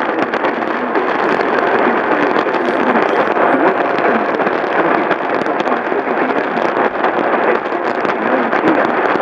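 Steady loud hiss of radio static, a band-limited rushing noise with no tone or rhythm in it.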